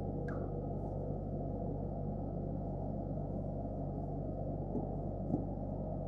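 Steady low hum with a faint click just after the start and a couple of light ticks near the end.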